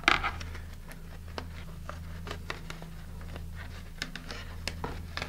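Masking tape being peeled off a model rocket's painted body: a short loud rasp as a strip pulls away at the start, then scattered small crackles and clicks as the tape is worked loose, over a steady low hum.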